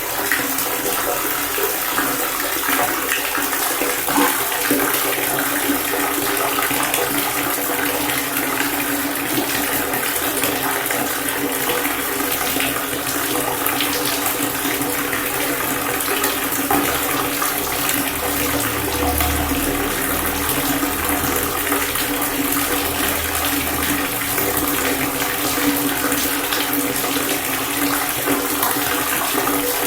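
Water pouring and splashing in a steady, unbroken stream.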